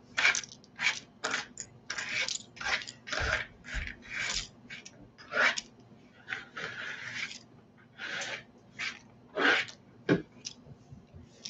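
Small cardboard game counters being scraped across a tabletop and dropped into a plastic zip bag: a run of short scrapes, light clatters and plastic rustles, about one or two a second.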